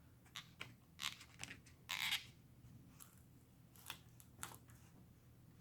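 Short scraping and crackling sounds of a plastic pry tool working under a MacBook battery's adhesive strips. The longest and loudest scrape comes about two seconds in, with a few smaller clicks and scrapes around it.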